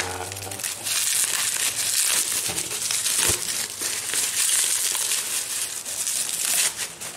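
Plastic bubble wrap crinkling and rustling as hands pull it off a round tin, with many small crackles close together.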